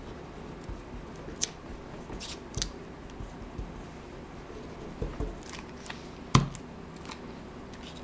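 Paper scraps rustling and crackling as they are handled and glued, in a few short sharp bursts, with a single louder knock about six seconds in as the plastic glue bottle is set down on the table.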